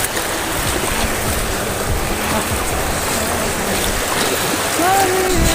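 Steady rushing of a shallow rocky mountain stream, with low bumps on the microphone. Near the end a pitched, gliding sound begins over it.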